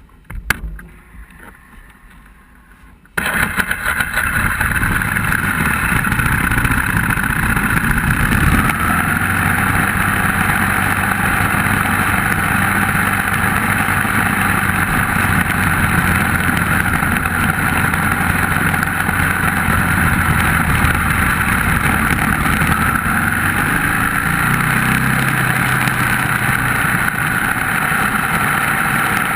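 Onboard sound of a vehicle on a race track: engine running under load with heavy wind rush. It starts abruptly about three seconds in, after a few faint clicks, and the engine pitch shifts now and then.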